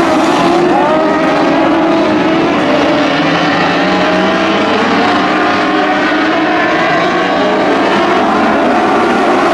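A pack of dwarf race cars running on a dirt oval, several high-revving motorcycle-type engines at once, their pitches rising and falling over one another as the drivers get on and off the throttle.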